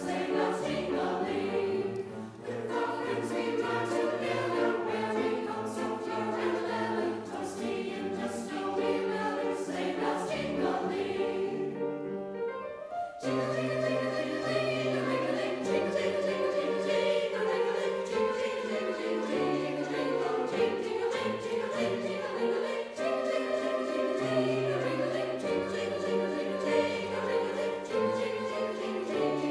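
Choir singing a Christmas choral arrangement of a Russian folk tune. About twelve seconds in, the sound thins for a moment, then the full choir comes in again.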